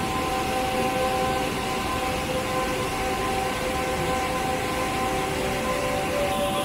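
Waterfall rushing loudly: a steady roar of white water pouring over rock ledges. A few faint steady tones are held over it.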